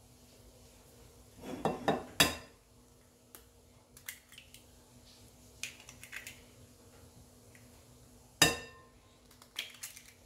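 Raw eggs being cracked on the rim of a glass mixing bowl. Eggshell knocks and clinks sharply against the glass in short groups of taps, loudest about two seconds in and again about eight and a half seconds in.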